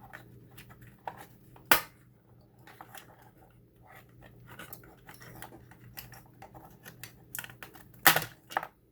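Plastic housing of a portable tire inflator being pried open by hand: scattered small clicks and scrapes, one sharp snap nearly two seconds in, and a louder run of cracks and knocks near the end.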